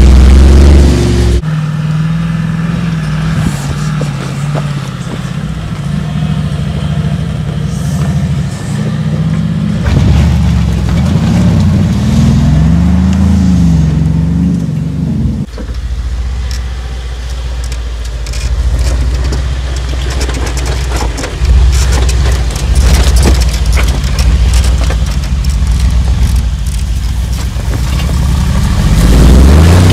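Mercedes-Benz G 500 4x4² engine driving the vehicle over rough dirt and rock. The engine note rises and falls as it works, with tyres crackling over stones in the later half.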